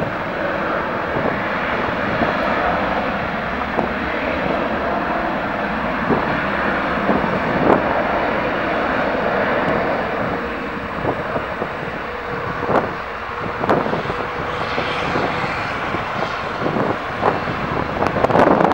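Airliner engines running, a steady loud noise with a faint steady whine through the middle part and a few brief thumps toward the end.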